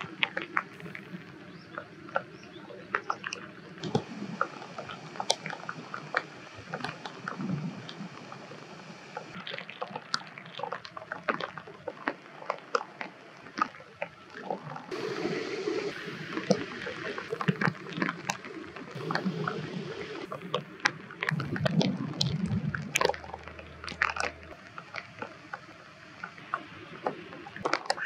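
Water sounds in rainy weather: many sharp drips and taps over water sloshing and gurgling, with the background changing from clip to clip.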